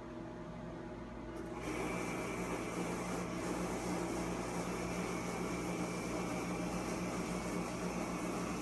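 Motorized patient table of a nuclear-medicine gamma camera raising the patient: its motor starts about a second and a half in and runs steadily with a low hum and a faint high whine.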